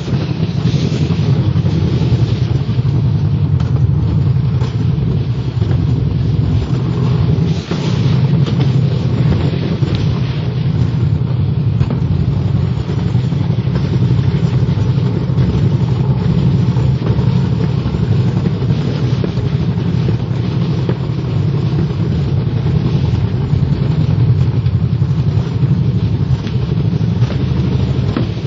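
Alpine slide sled running fast down its trough-shaped chute: a loud, steady low rumble from the sled on the track, with a brief drop about seven seconds in.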